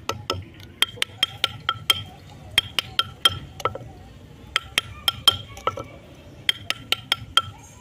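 Engraving chisel being tapped into a metal katora bowl: sharp metallic taps, each with a brief ring from the bowl, in quick runs of about three or four a second, with short pauses near the middle.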